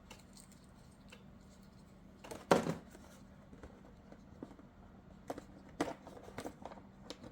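Plastic parts of an RC truck's roof running-light bar being handled and fitted: faint clicks and taps, with one louder snap about two and a half seconds in, over a faint steady hum.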